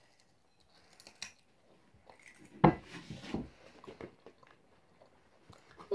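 Raw carrots being bitten and chewed: short crisp crunches, the loudest about two and a half seconds in, with a few small clicks and handling noises around them.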